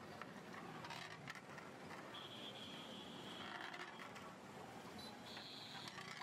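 A metal ladle stirring and scraping in a large aluminium cooking pot of oil and meat gravy, with scattered clicks and knocks. Two high squeaks sound: a longer one in the middle and a shorter one near the end.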